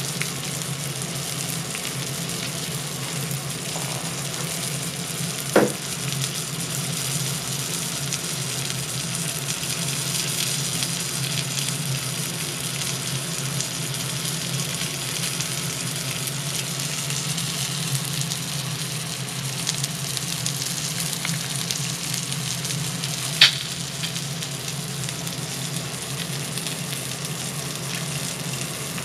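Pacific saury sizzling as it grills on the plate of a Zaigle Handsome infrared tabletop grill: a steady crackling sizzle of cooking fat over a low hum, broken twice by a sharp pop.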